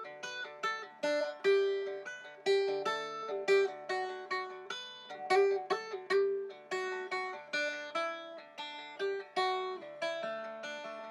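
Longneck dulcimer music: a quick plucked melody of ringing notes, several a second, each fading after it is struck.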